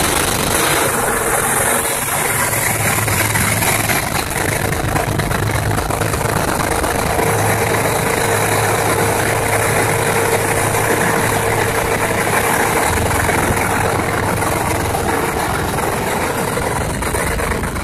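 Pilot boat's engine running steadily, a loud, even hum with the rush of water along the hull mixed in.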